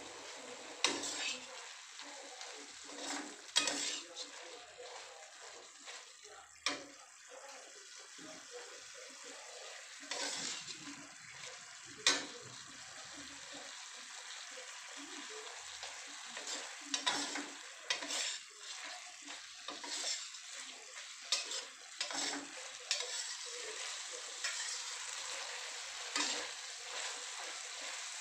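Green beans sizzling in a stainless steel wok while a metal spatula stirs and scrapes them. The spatula knocks against the pan at irregular intervals, more often in the second half.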